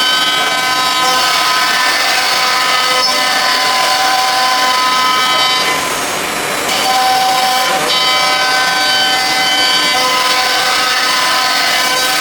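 Blue Elephant 1328 CNC nesting router cutting board: a steady, high spindle whine with several tones over cutting noise. It dips briefly about halfway through, then picks up again.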